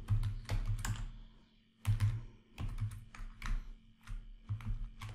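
Typing on a computer keyboard: short, irregular clusters of keystrokes with brief pauses between them.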